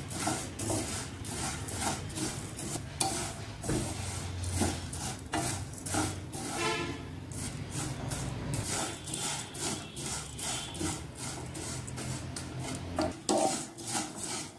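Spatula stirring and scraping dry vermicelli around a nonstick pan as it roasts in a little ghee, a quick run of rustling, scraping strokes several a second, with a brief lull partway through.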